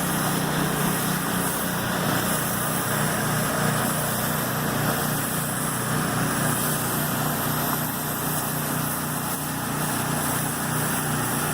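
Small gas engine driving a soft-wash pump, running steadily at constant speed, with a steady hiss of low-pressure water spray rinsing siding.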